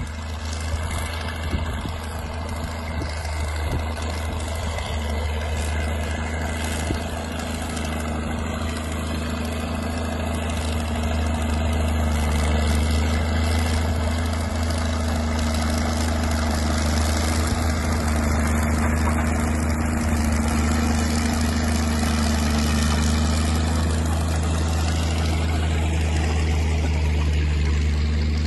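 Diesel engine of a Caterpillar D6 9U crawler dozer running steadily as it tows a train of loaded freight sleighs over snow. It grows louder over the first dozen seconds as it draws nearer, then holds level.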